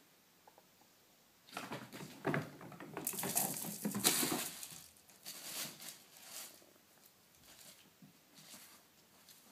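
Kittens scuffling under a quilted bedspread: scratchy rustling of the fabric in a burst of a few seconds, loudest near the middle, then fading to a few faint scratches.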